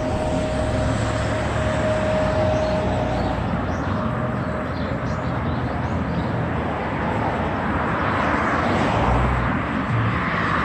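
City street ambience: a steady rush of traffic noise, swelling near the end as a vehicle passes closer.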